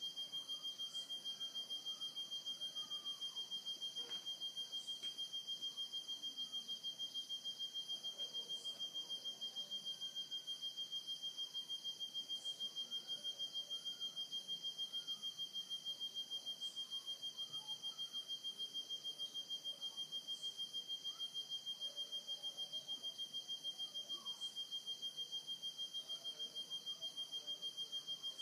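Nocturnal cicada singing: one steady, high-pitched tone pulsed rapidly and evenly, without a break.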